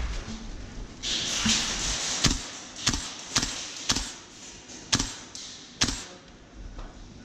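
Six sharp cracks of airsoft guns firing single shots, irregularly spaced, after a stretch of rustling.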